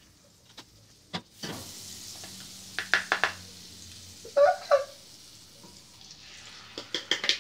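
Butter sizzling in a hot frying pan as beaten egg goes in, with a few knocks and clinks partway through. Near the end a utensil taps and scrapes quickly around the pan as the egg is stirred.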